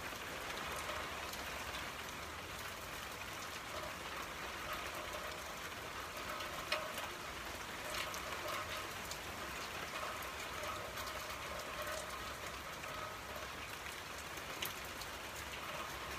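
Steady rain falling, with scattered sharp drip ticks; a somewhat louder drop lands about seven seconds in.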